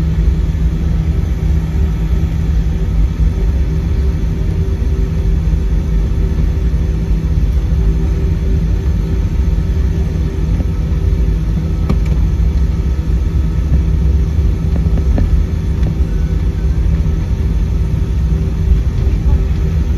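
Airliner cabin noise while taxiing: a steady low rumble with an even engine hum.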